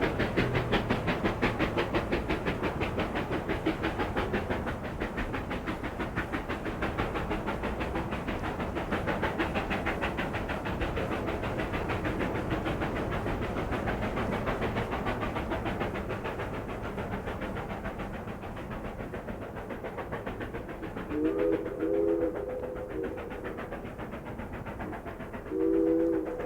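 Steam locomotive running with a fast, even rhythmic beat that slowly grows fainter and duller. About 21 seconds in it sounds a chord whistle in two short blasts, and once more near the end.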